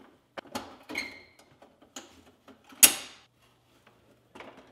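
Clicks and scrapes of a Samsung freezer's metal defrost heater being pried loose from the aluminium-finned evaporator coil, with a short metallic ring about a second in and a sharper clack near three seconds in.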